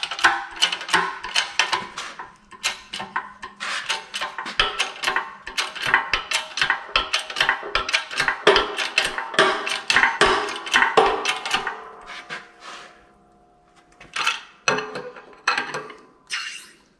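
Rapid metallic clicking and clanking with a short ring, from an adjustable wrench working the steel house-lock pin back and forth in its cast-iron lock; it goes quieter about twelve seconds in, then a few separate clanks come near the end.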